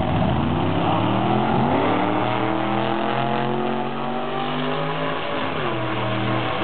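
Supercharged drag-racing van's engine launching off the start line and accelerating hard down the strip, its pitch climbing in rising sweeps. Near the end the pitch dips and climbs again.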